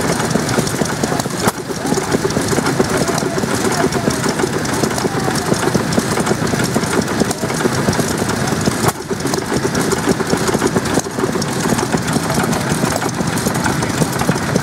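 Termaat & Monahan horizontal stationary petrol engine running steadily, driving a Dawn blower through a long flat belt.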